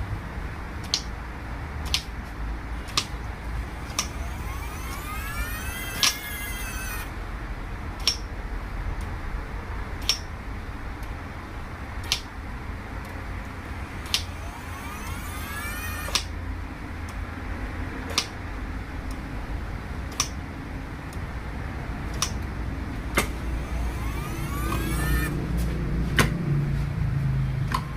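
DQ200 DSG mechatronic unit running on a test bench: its electric hydraulic pump spins up with a rising whine three times, each run cutting off abruptly, with sharp clicks about once every one to two seconds over a steady low hum.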